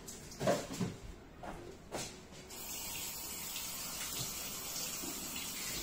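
A few light knocks, then a kitchen tap turned on about two and a half seconds in, running water steadily into the sink.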